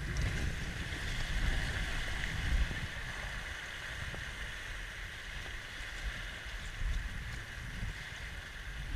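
Steady rush of Rio Grande river water around a raft, with wind gusting on the microphone.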